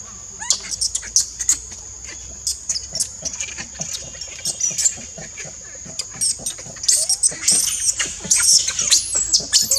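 Newborn macaque squealing in short, high-pitched cries that come faster and louder in the last few seconds, over a steady high insect drone.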